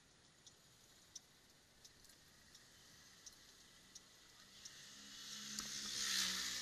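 Light, regular ticking, about one tick every 0.7 seconds. Near the end a louder rushing noise with a low wavering hum swells up and falls away.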